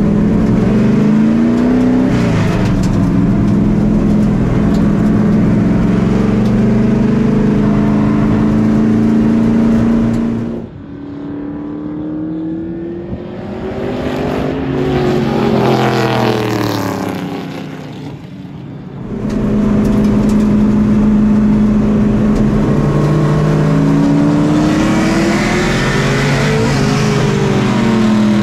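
LS V8 in a stock-car race vehicle at lapping speed, heard from inside the cockpit, its pitch rising and falling with throttle and lifts. About ten seconds in it drops to a more distant sound of stock cars coming down the straight, swelling as they approach and falling in pitch as they pass. After that the loud in-cabin engine returns.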